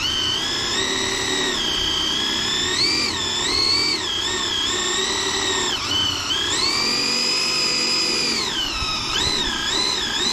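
Electric motor and geared drivetrain of a 1/10-scale RC drag car whining as it spins the rear tyres in a burnout to warm them, the pitch rising and falling with the throttle. The whine is held high for a couple of seconds past the middle, then goes through several quick blips near the end.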